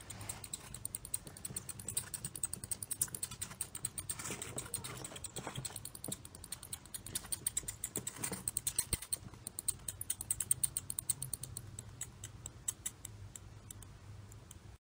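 Mouse scurrying sound effect: a fast, continuous patter of tiny claw clicks and scratches, with a few louder flurries around the middle, cutting off suddenly near the end.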